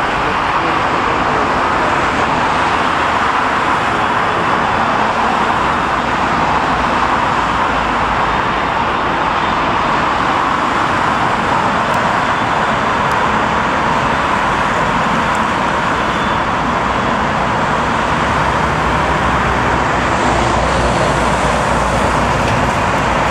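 Steady, loud, even roar of road traffic passing close by, mixed with jet engine noise from aircraft at the airport.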